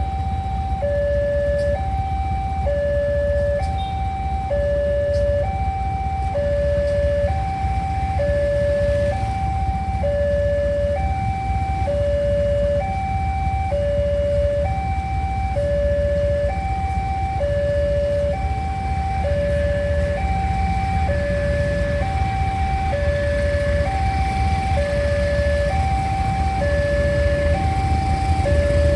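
Railway level-crossing warning alarm sounding a steady two-tone hi-lo siren, alternating between a higher and a lower tone about once a second, over a steady low rumble.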